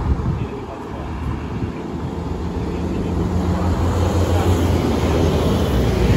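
Road traffic: vehicle engines and tyres rumbling, growing louder from about a second in and then holding steady.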